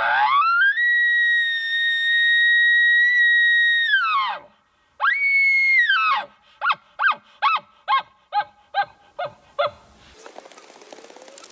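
Elk bugle blown on a Carbon Assassin bugle tube with an El Grande diaphragm mouth call. A note climbs to a high whistle, holds steady for about four seconds and falls away. A shorter second high note follows, then a run of about nine quick chuckles.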